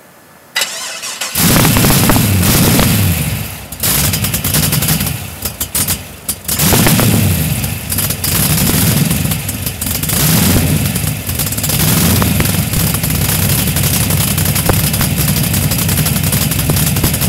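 LS1 V8 in a 1973 Datsun 240Z cranked on the starter and catching about a second in. The revs rise and fall several times, then it settles into a loud, steady rough idle.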